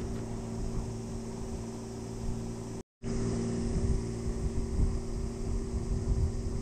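A steady low hum under irregular low rumble from wind on the microphone, with a brief total dropout about three seconds in.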